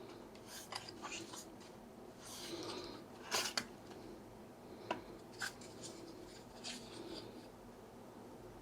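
Faint, scattered rustling and light clicks of cardboard and plastic packaging and drone accessories being handled, with a sharper click about a third of the way in and a few smaller ones later.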